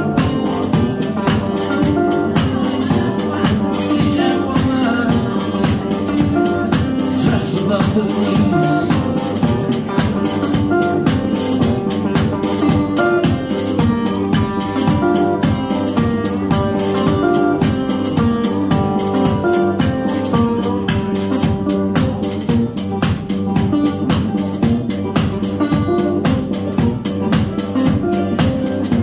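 A live band plays an instrumental passage of a blues song, with a steady drum beat under picked strings.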